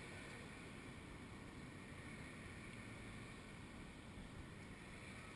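Faint, steady hum of road traffic mixed with wind, with no distinct events.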